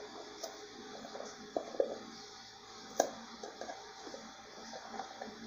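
Sweetened condensed milk squeezed from a carton into a bowl of eggs: faint squishing and a few light clicks from the carton under the hands, over a low steady hum.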